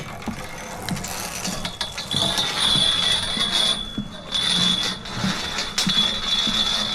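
Metal safety clips clicking and rattling as they are moved across onto the safety line, with a steady high whine that starts about two seconds in.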